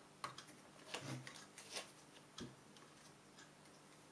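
Faint, scattered small clicks and taps of hands and a soldering iron working on a computer motherboard, a few at uneven intervals.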